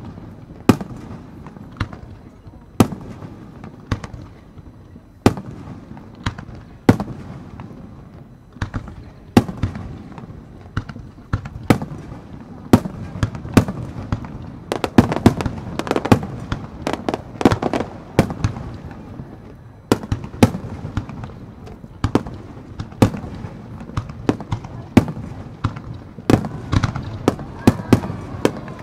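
Fireworks display: aerial shells bursting with sharp bangs at irregular intervals, spaced out at first, then coming thick and fast in the middle and again near the end.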